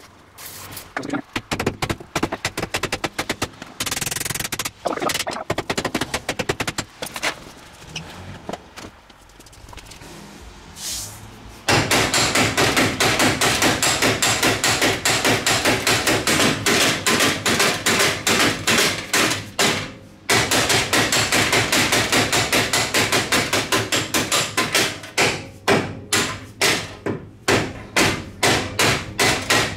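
A short hiss from an aerosol can and a few scattered knocks. Then, from about twelve seconds in, a steady run of quick hammer blows, a few a second and pausing briefly once, striking the rust-seized spindle on a Ford TTB front axle to drive it loose.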